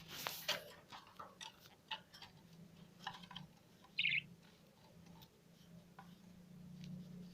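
Small cage birds, a canary and budgerigars, giving short chirps and scattered clicks, with one brief louder chirp about four seconds in, over a low steady hum.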